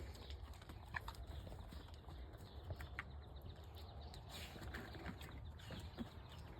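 Faint outdoor background: a few short, scattered bird chirps over a low, steady rumble.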